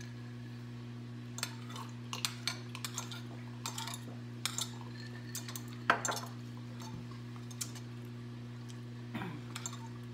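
Scattered clinks and taps of cutlery, dishes and a drinking glass during a meal, the loudest about six seconds in, over a steady low hum.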